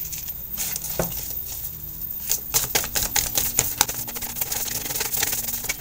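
Oracle cards being shuffled by hand: a rapid, uneven flurry of papery card clicks and slaps. It is sparse at first and thickens from about two seconds in.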